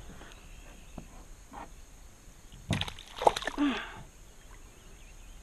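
A hooked bass splashing and thrashing at the surface beside a kayak, a short cluster of sharp splashes about three seconds in.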